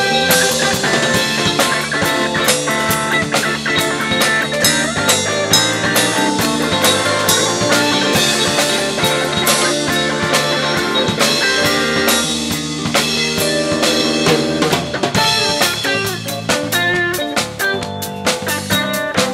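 Live jazz-funk fusion band playing, with a busy drum kit beat and rimshots to the fore.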